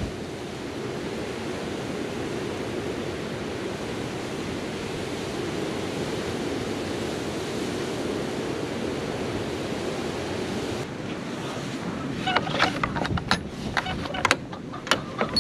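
Wind rushing on the microphone, steady for about eleven seconds. Then it drops and a run of sharp clicks and knocks follows as the metal thumb latch on a wooden barn door is worked.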